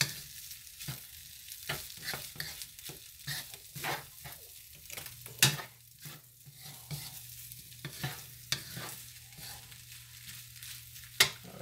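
Wooden spatula scraping and knocking against a wok as fried rice is stirred and tossed, over a steady frying sizzle. One louder knock comes about halfway through and another near the end.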